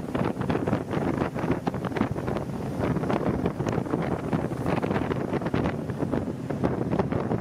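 Wind buffeting the microphone on a rigid-hull inflatable boat under way, with the boat's engine and water noise underneath.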